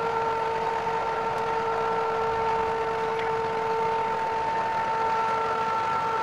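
Truck-mounted knuckle-boom crane running, a steady engine drone with a steady high whine over it as the crane lifts its load.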